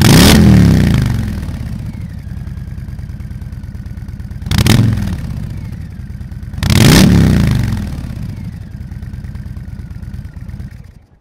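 Harley-Davidson Fat Boy 114's Milwaukee-Eight V-twin idling with a steady, lumpy beat through Zard homologated slip-on mufflers, blipped three times: a long loud rev at the start, a shorter one about four and a half seconds in, and another about seven seconds in, each falling back to idle. The sound stops abruptly just before the end.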